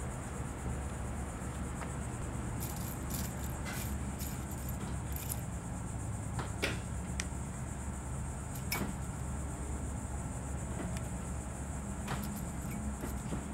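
Small metal parts clicking and clinking as needles are handled in a metal fixture on a hot stamping machine: a quick run of clicks a few seconds in, then single clicks now and then, over a steady low hum.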